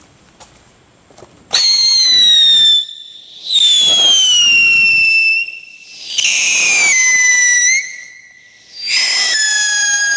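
Tricky Goblin firework fountain whistling: after a second or so of faint crackling, it gives four loud whistles, each falling in pitch and lasting a second or two, with a quieter hiss between them.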